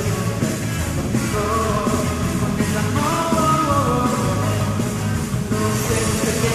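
Rock-styled TV theme song sung in Latin American Spanish by a male singer over a full rock band with a steady beat.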